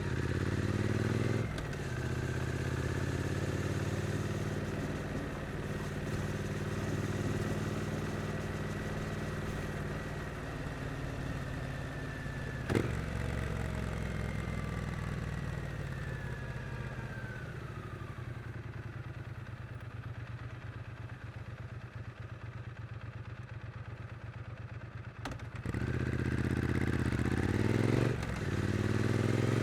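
Triumph Street Twin's 900 cc parallel-twin engine in town riding. It pulls through a gear change early on, then eases off and settles to a low, quieter run in the middle. About 25 seconds in it picks up again and shifts once more near the end. A single sharp click comes about 13 seconds in.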